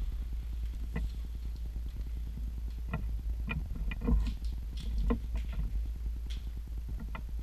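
Irregular light clicks and ticks, about a dozen scattered through, the loudest about four seconds in, over a steady low rumble.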